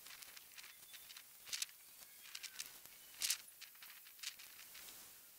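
Faint rustling and crinkling of a plastic bag of topsoil and dry straw being handled, with two short, louder crinkles about a second and a half and about three seconds in.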